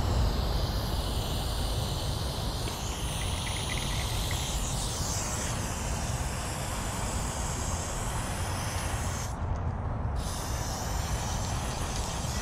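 Aerosol spray paint can hissing steadily while painting a line. It cuts out briefly about nine seconds in, then resumes, over a steady low rumble.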